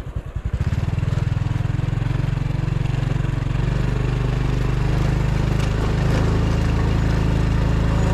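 Small motorcycle engine running while riding. Its slow, low pulsing picks up about a second in and settles into a steady hum.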